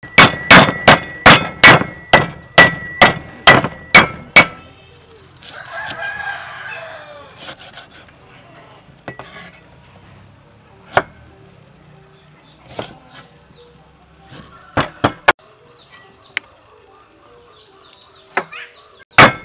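Cleaver chopping lemongrass stalks on a thick wooden chopping block: a quick run of about a dozen sharp knocks in the first four seconds or so, then scattered single chops later on. A rooster crows once, about six seconds in.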